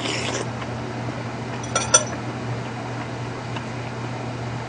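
A metal spoon clinking a couple of times against a ceramic bowl about two seconds in, during a meal, over a steady low hum.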